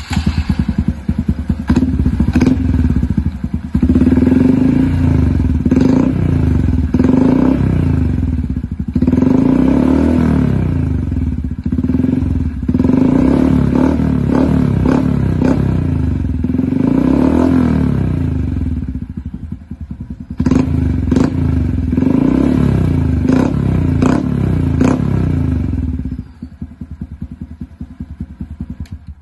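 Honda ST125 Dax's single-cylinder four-stroke engine, breathing through a Zoom exhaust with the dB killer removed, revved again and again in short throttle blips that rise and fall in pitch, dropping back to idle between them and settling to idle near the end.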